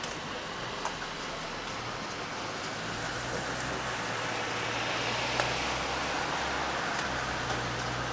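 Steady rain falling, with scattered sharp drips. A vehicle passes on the wet road, its tyre hiss and low engine hum swelling over the first few seconds and staying loud through the rest.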